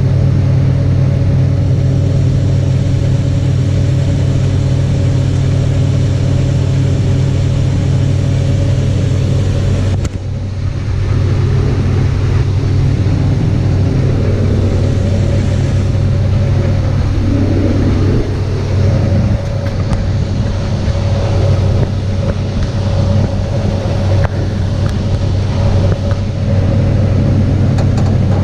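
Combine harvester running steadily while shelling corn: a loud, even engine-and-machinery drone with a strong low hum, dipping briefly about ten seconds in.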